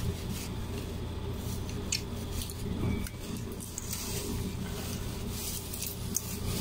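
Thin plastic bag of cooked rice crinkling and rustling as it is handled and squeezed, with a couple of small clicks.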